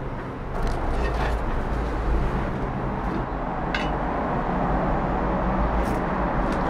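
Steady low rumble and hiss with a few light clicks: handling noise from a handheld camera being carried while walking.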